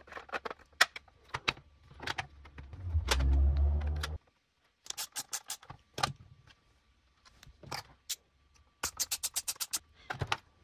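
Hard plastic clicks and knocks as 3D-printed panels are handled and fitted together on a prop casing. A low rumble comes about three to four seconds in, and a quick run of clicks comes near the end.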